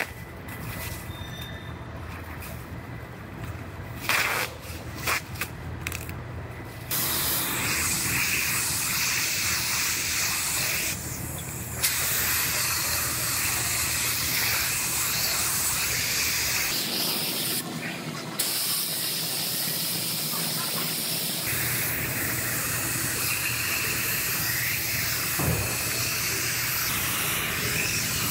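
Plastic masking sheet rustling and crinkling for the first several seconds, then a gravity-feed spray gun hissing with compressed air as it sprays etch primer, in long passes with short breaks where the trigger is let go.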